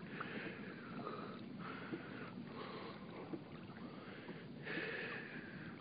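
Faint swish of water along the hull of a pedal-driven Hobie Mirage Outback kayak under way, swelling and fading about once a second, with a few light ticks.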